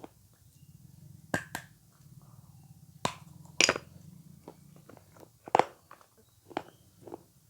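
Close-miked eating of avocado: a series of sharp, separate bites and wet chewing clicks, loudest about three and a half and five and a half seconds in.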